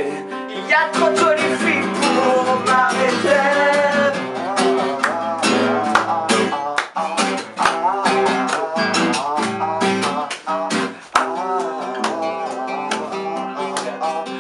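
Acoustic guitar strummed in a steady rhythm, with a voice singing over it without clear words.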